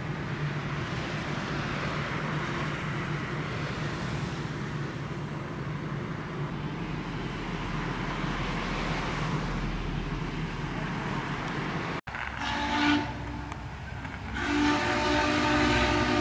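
Steady rushing noise of a train running, then after a cut the whistle of Norfolk and Western J-class steam locomotive No. 611: a short blast, followed by a long sustained blast over the last couple of seconds.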